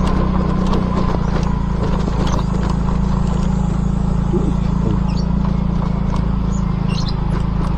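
Motorcycle engine running steadily while riding, a loud low drone without breaks, with a few faint high chirps in the second half.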